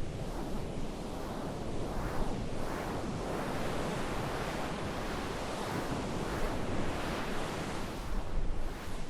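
A steady rushing noise, like wind or surf, swelling and easing slightly about once or twice a second.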